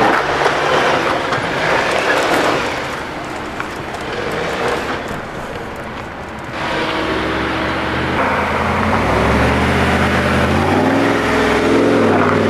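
Off-road Jeeps crawling over slickrock: a steady mix of engine and wind noise, then an engine revving up and back down about eleven seconds in.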